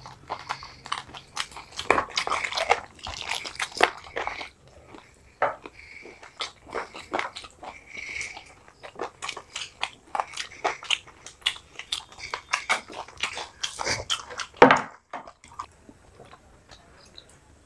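Two people chewing and biting into fried chicken lollipops close to the microphone: many short, irregular wet mouth clicks. One louder knock comes near the end.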